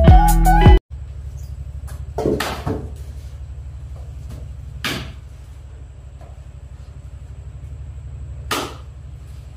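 Intro music that cuts off just under a second in, then a steady low machine hum with a fast flutter, broken a few times by sharp knocks of a kitchen knife chopping raw chicken on a wooden cutting board.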